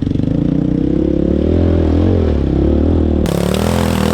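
Motor vehicle engine running, its pitch rising and falling as it is throttled.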